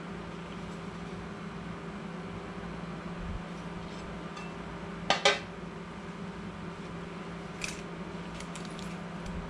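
Light handling clicks as a thin plastic sheet and a tape measure are handled by hand: two sharp clicks in quick succession about halfway through, a lighter click later and a few faint ticks near the end, over a steady low hum.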